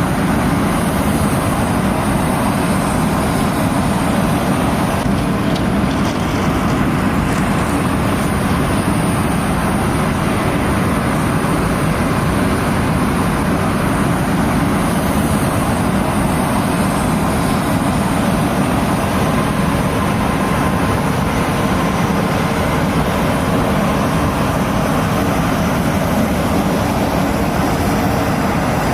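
Steady, loud engine noise that holds unchanged throughout.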